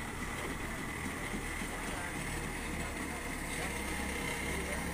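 Small crawler bulldozer's diesel engine running steadily under work, with a thin steady high tone through it.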